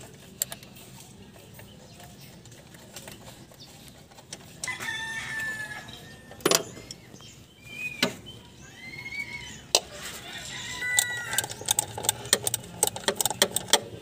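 A rooster crows three times in the background, each call an arching, drawn-out cry. Sharp metal clicks and taps from a ratcheting wrench and sockets on engine bolts come in between, growing frequent near the end.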